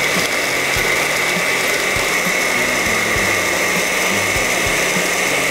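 Countertop blender running steadily with a high motor whine, blending an iced-coffee mix of ice, evaporated milk and ice cream.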